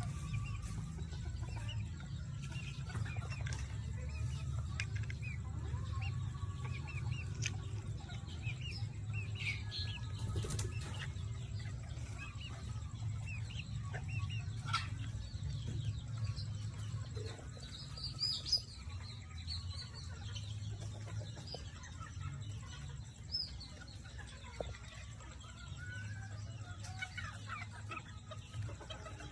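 A flock of chickens clucking and chirping on and off, with short calls scattered through, over a steady low rumble.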